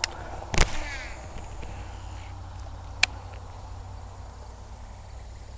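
Low wind rumble on the microphone, with three sharp clicks as the fishing rod and baitcasting reel are handled, the loudest about half a second in.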